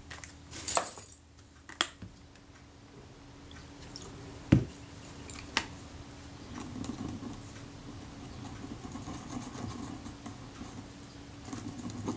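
A few small clicks and a knock as a small film camera and tools are handled. Then, from about halfway, a soft steady scrubbing as a cotton swab rubs old adhesive off the camera's metal film advance lever.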